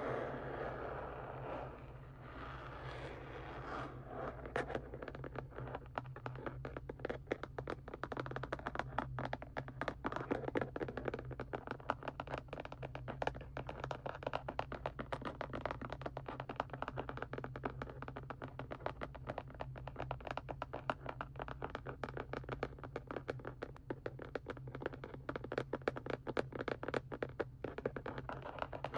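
Fingers tapping rapidly on the plastic packaging of a set of paints, a dense run of small clicks, after a few seconds of softer rubbing at the start. A steady low hum sits underneath.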